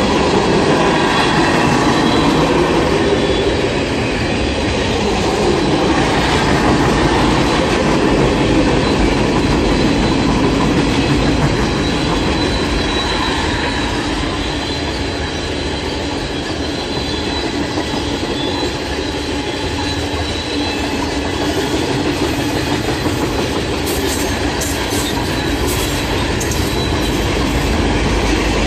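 Train cars rolling past on the rails: a steady, loud rumble of wheels on track with a faint high wheel squeal, and sharper clicks near the end.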